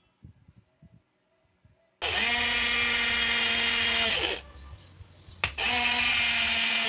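Cordless drill running a small twist bit into a grey plastic end cap, in two steady runs of about two seconds each, starting about two seconds in and again near the end, with a sharp click just before the second run.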